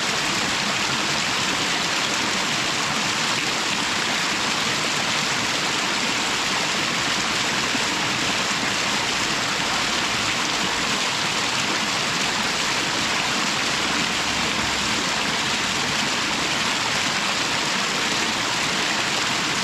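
Waterfall pouring steadily: an even rush of falling water, with no change in level.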